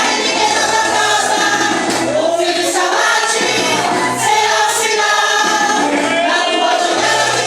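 A group of women singing a gospel hymn together over a backing track, with a steady bass line underneath.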